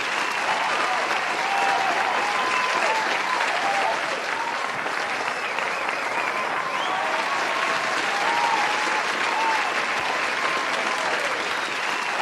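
A crowd applauding steadily, with cheering voices rising and falling through the clapping.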